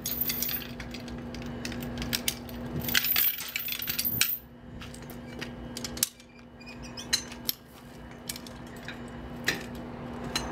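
Steel link chain clinking and rattling against the metal of a Hi-Lift style jack and its nose piece as it is pulled through and hooked, with a run of quick clicks about three seconds in and single sharp metal clicks later. A steady low hum runs underneath.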